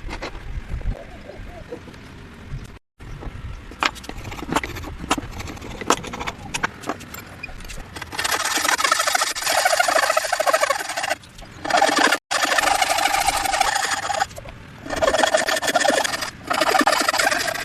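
Hand tools working wood: a series of light sharp taps, then from about eight seconds a loud, rapid scraping of a tool cutting wood, broken by a few short pauses.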